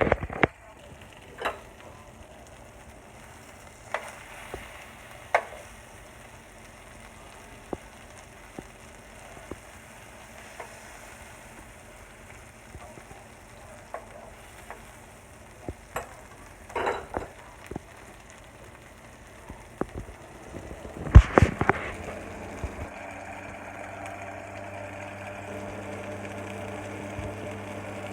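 Kitchen clatter: scattered light clicks and knocks of a utensil against cookware or dishes over a steady hiss, with a burst of louder knocks about two-thirds of the way in. A steady low hum sets in soon after.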